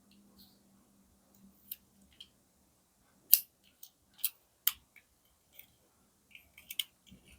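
Scattered sharp clicks and snaps from handling the packaging of a 1/64 die-cast toy car during unboxing, about eight of them, the loudest a little over three seconds in.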